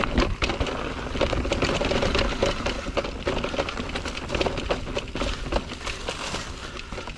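Electric mountain bike riding down a dirt forest trail: Maxxis Minion knobby tyres rolling over the ground with a continuous, irregular clatter of small knocks and rattles from the bike as it bumps along.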